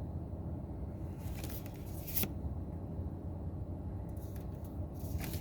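Trading cards being handled: a short rustle that ends in a sharp snap about two seconds in, and another brief rustle near the end, over a steady low background rumble.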